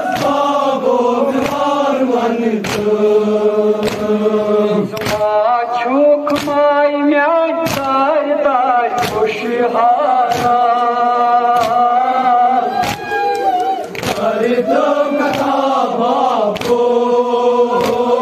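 Men chanting a Kashmiri nauha, a Muharram lament, in long held sung lines. Sharp slaps of matam (hands beating on chests) keep time about once a second.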